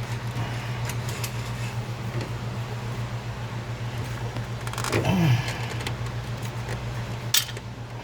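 Light clicks and clinks of ABS pipe fittings being handled and pressed together over a steady low hum of running equipment, with a short falling sound about five seconds in and a sharp click near the end.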